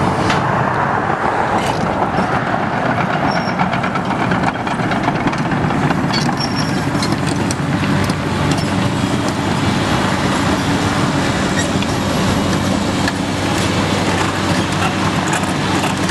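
Hyundai Robex 210LC-9 excavator's Cummins 6.7-litre turbo diesel running steadily while the machine travels and turns, its steel track pads and undercarriage clanking and rattling.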